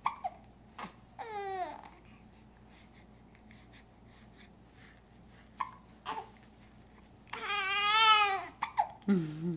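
Baby babbling on a play mat: a short wavering coo about a second in, then a longer, louder squealing babble near the end. Between them come a few brief sharp sounds, the baby's hiccups.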